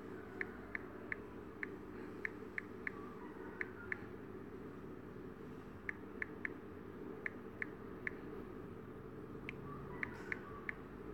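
Key-press clicks of a smartphone's on-screen keyboard during typing: short, high, separate clicks at an uneven pace, with a pause of about two seconds in the middle, over a faint steady hum.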